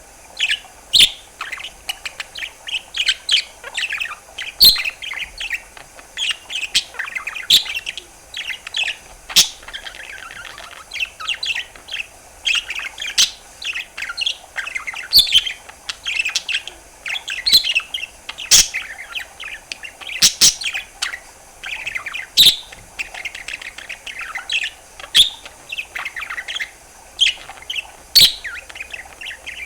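Budgerigar warbling, a continuous fast chatter of chirps and trills, broken every couple of seconds by sharp pops.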